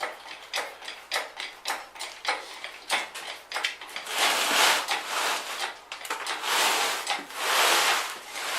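Quick irregular clicking and knocking, then from about four seconds in a series of rough scraping or rubbing sounds, each about a second long.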